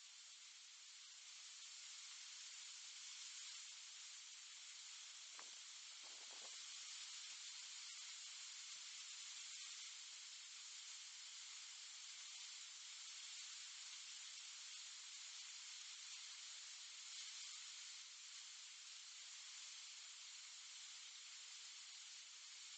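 Near silence: a steady high microphone hiss, with two faint, brief sounds about five and six seconds in.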